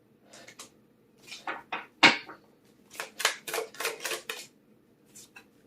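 Tarot cards being handled and laid on a table: a series of short rustles and taps, with one sharp tap about two seconds in and a quick run of rustles in the second half.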